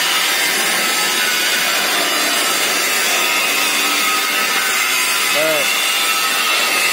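Oxy-fuel gas welding torch flame hissing steadily as it heats steel for brazing with a filler rod.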